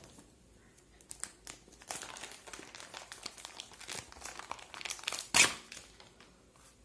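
Thin clear plastic bag crinkling and crackling as the camera carrying pouch inside it is handled, with a louder rustle about five seconds in.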